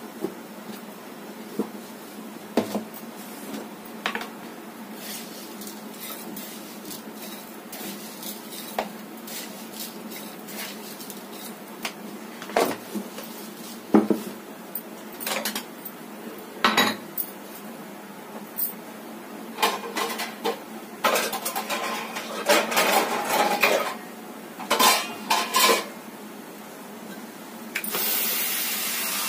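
Metal utensils and pots clinking and clattering on a kitchen counter: scattered knocks at first, then a busier run of clatter in the second half. Near the end a water tap starts running.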